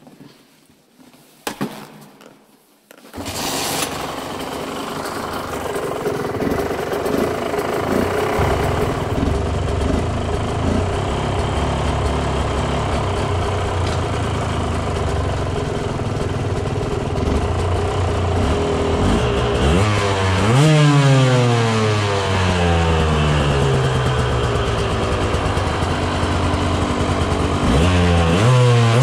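KTM two-stroke dirt bike engine starting about three seconds in after a few knocks, then running steadily. The throttle is blipped twice near the end, the revs rising sharply and falling back.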